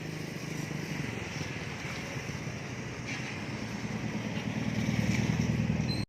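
Street traffic with a vehicle engine running, its rapid low pulsing growing louder near the end before the sound cuts off suddenly.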